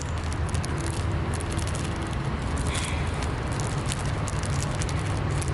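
Dry pancake mix being poured into a plastic water bottle: a fine crackling and rustling of many small ticks, over a steady low rumble.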